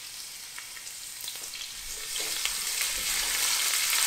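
Chopped onion, celery, carrot and peppers sizzling in hot olive oil in a pot, with small crackles; the sizzle grows louder about halfway through.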